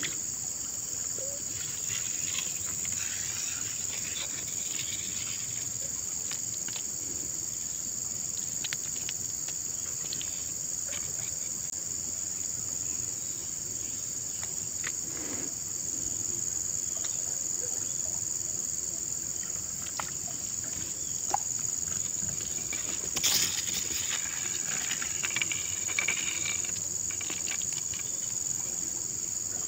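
Steady high-pitched drone of an insect chorus, with scattered small clicks and knocks and a sharper knock about 23 seconds in.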